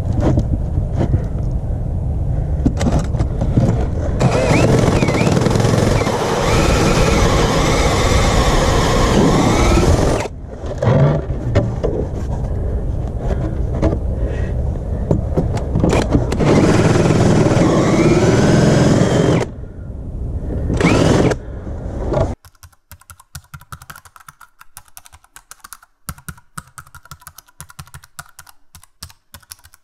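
Cordless drill spinning a hole saw as it cuts into a deck board, in two long runs with a short pause about ten seconds in and a couple of brief bursts after; the hole saw wandered off its start. About two-thirds of the way through the drilling stops and a fast, light typewriter-style clicking takes over.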